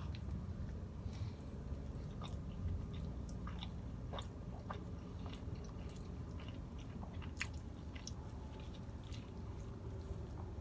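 A person chewing food with the mouth close to the microphone, with scattered soft wet clicks and smacks over a low steady hum.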